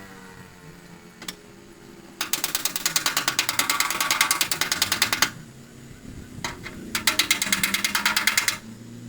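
Body hammer tapping rapidly on the sheet metal of a VW Beetle hood to knock out a dent. The strikes come in two bursts of quick, even taps, with a pause between.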